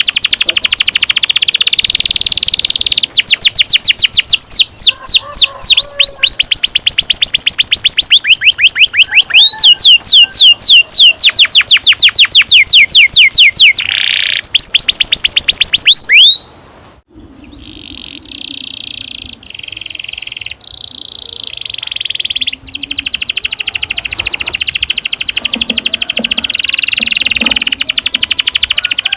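Domestic canary singing long rolling trills: fast runs of repeated high notes and quick sweeping notes. The song breaks off briefly about two-thirds of the way through, then goes on with buzzier rolls.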